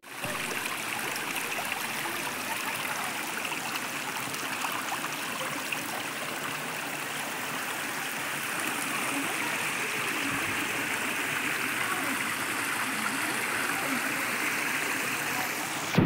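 Shallow creek water running over flat rock slabs: a steady, even rush of flowing water.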